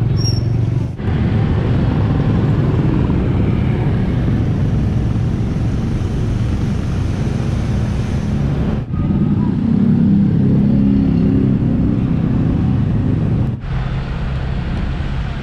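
Steady rumble of a motor vehicle on the road, engine and wind noise on the microphone while riding. It breaks off for an instant three times and picks up again.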